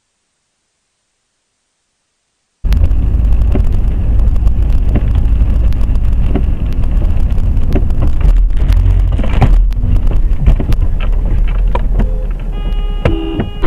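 Dashcam microphone inside a moving car: a loud steady low rumble of engine and road noise with many sharp clicks and knocks. It starts suddenly after near silence, about two and a half seconds in. Near the end there are a few short tones.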